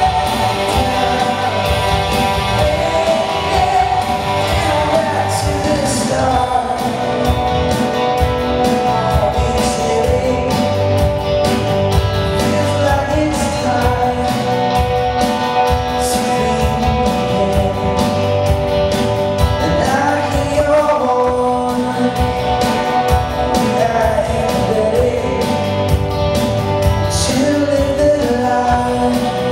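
Live rock band playing a song with drums, guitars and sung vocals, echoing in a large hall.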